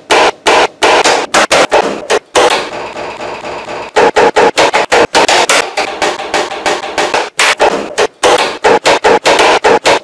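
Harsh, loud noise in rapid, choppy bursts, several a second, starting and stopping abruptly and easing off a little around the third second, from a wooden frame bound with a strap being wrenched and worked by hand.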